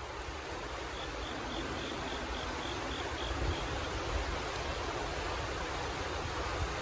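A cricket chirping: a run of about ten short, high chirps, about four a second, starting about a second in and stopping after a couple of seconds, over a steady rushing background noise.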